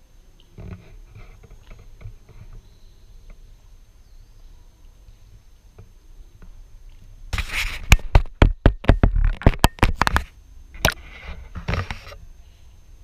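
Camera handling noise: a quick run of sharp knocks and rubbing right on the microphone, starting about seven seconds in and lasting about three seconds, with a few more knocks near the end.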